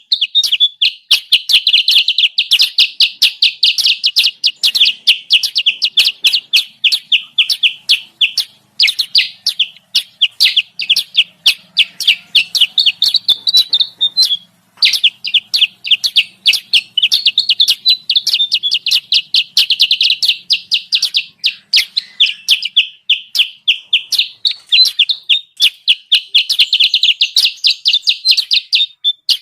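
Bird-lure recording of kutilang sutra calls: long strings of fast, high, chattering chirps, about ten a second, broken twice by brief pauses. It is a lure call meant to bring wild birds of that kind down to the trap.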